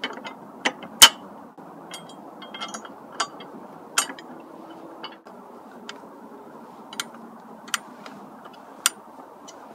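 Metal sub-cage brackets and bolts clinking and knocking against a Honda Grom's tail as they are fitted by hand, with an Allen key clicking on a bolt near the end. There are about nine sharp separate clicks, the loudest about a second in, over a steady faint background noise.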